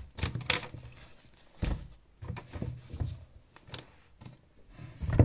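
Textbooks and paper being handled on a desk: a string of irregular rustles, knocks and light thumps, the loudest near the end.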